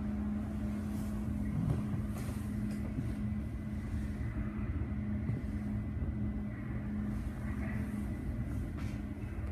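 Steady low electrical hum and rumble of a Munich U-Bahn train standing at the platform with its doors open, with one constant tone through it.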